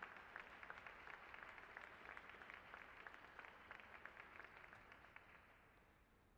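Audience applauding in an ice rink after the music stops, a dense patter of claps that fades away near the end.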